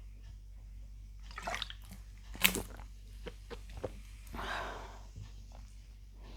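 A person drinking fizzy cola from a bottle: a string of wet mouth clicks and gulps as she swallows, with one sharp click about two and a half seconds in and a short breathy rush a little after four seconds.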